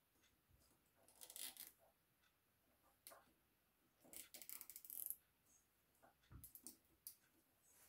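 Faint rustling and clicking of plastic as a spiral-wrapped cable is handled and tucked along the laser engraver's frame, in three short spells about a second, four seconds and six seconds in.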